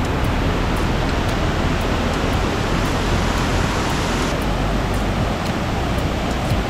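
Waterfall rushing: a steady, dense noise of falling water.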